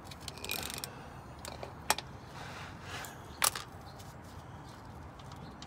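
Light rustling and a few short clicks as a gloved hand works a loosened oil drain plug out of the oil pan by hand; the sharpest clicks come about two and three and a half seconds in.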